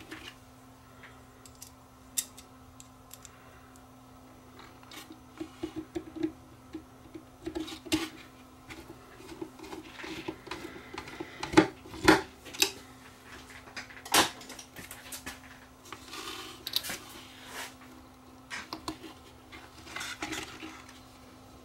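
Scattered clicks, taps and knocks of hands working wires and parts inside a wooden speaker cabinet, with a few louder knocks a little past the middle. A steady low hum runs underneath.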